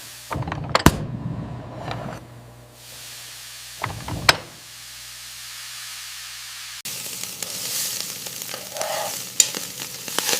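Food sizzling as it fries on a hot pan or griddle, with a few sharp knocks of a utensil. The sizzle changes abruptly twice.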